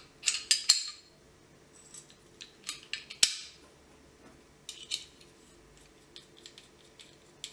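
Steel pistol parts clicking and clinking together as a Sig Sauer P226 slide is reassembled by hand, its recoil spring and guide rod being fitted. A quick cluster of clicks in the first second, then scattered single clicks, the sharpest a little over three seconds in.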